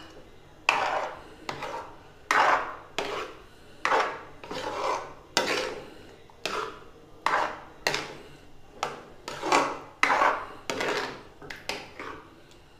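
Metal spoon stirring thick chana dal halwa batter in a kadhai, each stroke scraping through the mixture and along the pan, about three strokes every two seconds.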